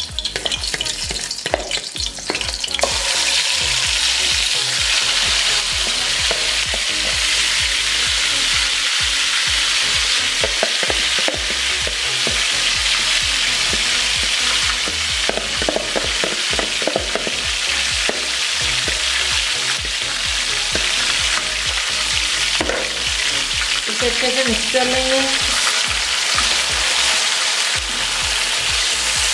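Yogurt-marinated chicken hitting hot oil in a kadai and sizzling steadily as it fries on high heat, stirred with a spatula. For the first couple of seconds a spoon scrapes the bowl, and the sizzle starts loud about three seconds in as the bulk of the chicken lands in the oil.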